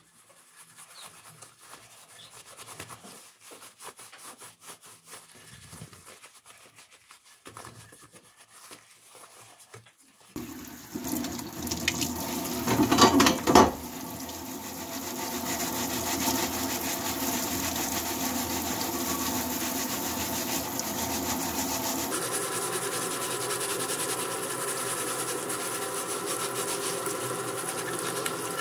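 Gloved hands faintly rubbing polish over an engraved metal dish. About ten seconds in, a tap starts running into a sink and water splashes over the dish as it is scrubbed with a cloth, loudest for a moment a few seconds after the water starts.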